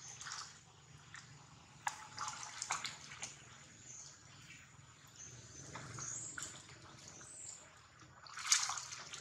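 Water splashing as a young macaque thrashes and swims in a shallow stream, in irregular bursts with the loudest splash shortly before the end.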